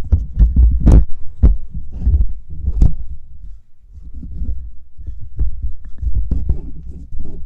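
Irregular loud low thumps and sharp knocks from hands-on work, with a quieter pause partway through.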